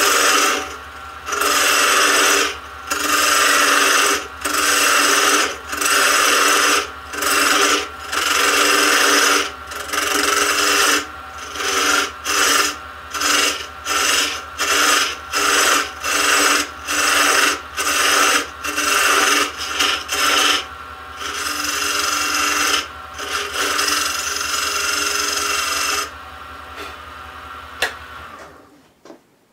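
Parting tool cutting into a spinning wooden spindle on a wood lathe in short repeated strokes, about one a second, over the lathe motor's steady hum. Near the end the cutting stops and the lathe is switched off and goes quiet.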